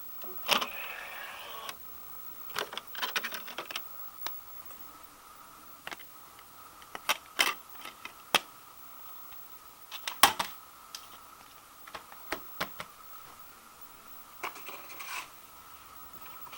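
Scattered sharp clicks, taps and short rustles of small objects being handled, irregular and a few seconds apart, over a faint steady hum.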